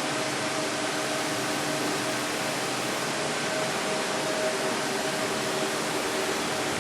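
Steady rushing hiss, even and unchanging, with faint steady tones underneath.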